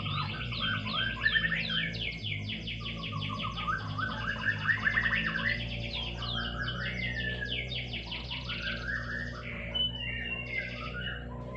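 Domestic canary singing a long, continuous song of fast trills and rolls with quick rising and falling notes, over low steady tones in the background.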